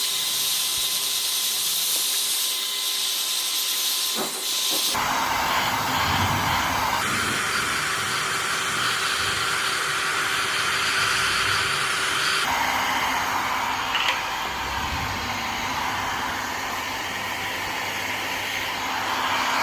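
Hand-held hair dryer blowing steadily to dry a freshly washed electrical socket. Its rushing hiss shifts in character about five, seven and twelve seconds in.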